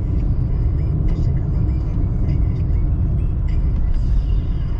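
Steady low rumble of a car in motion heard from inside the cabin: tyre roar on the road surface mixed with the engine's drone, with no change in pace.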